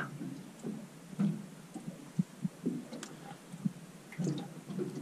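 Small waves lapping against a boat's hull: irregular low thuds and knocks, a few each second, over a faint steady hiss.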